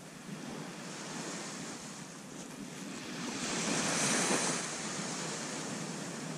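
Sea surf washing onto a sandy beach, with wind buffeting the microphone. A wave swells and breaks about three and a half seconds in, the loudest moment, then dies back to a steady wash.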